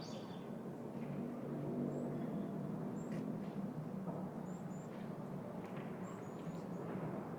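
Urban park ambience: a low, steady hum of distant traffic that swells a little about two seconds in, with short, scattered bird chirps over it.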